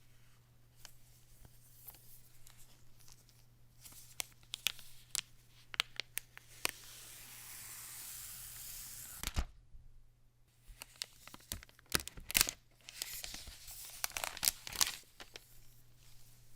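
iPad Pro box packaging being opened by hand: scattered clicks and taps, a long tear in the middle, a thump, then more tearing and crinkling near the end.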